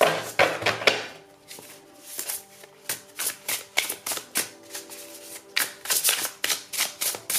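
Tarot cards being shuffled and handled: a quick run of short, sharp card snaps and slaps, a few a second, over soft background music.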